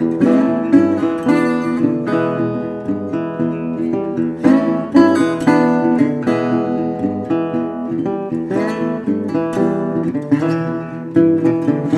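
Intro music: strummed and plucked acoustic guitar with a steady rhythm.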